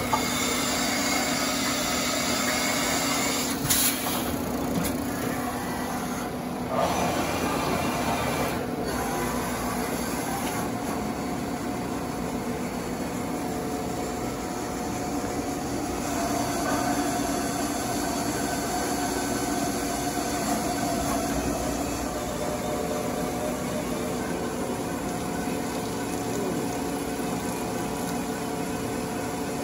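A 1997 Mazak VTC-30C CNC vertical mill running under power: a steady machine hum with a couple of steady tones, and two brief knocks about four and seven seconds in.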